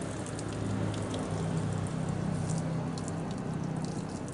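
Water poured from an aluminium kettle splashing and pattering onto a dented plastic car bumper and the ground below, the usual way of heating and softening the plastic so the dent can be pushed out. A low steady hum runs underneath.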